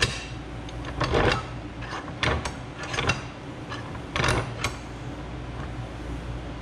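Bench vise being wound closed on a braided PTFE AN hose fitting: about six short metallic scrapes and clunks from the vise screw and handle, over a steady low hum.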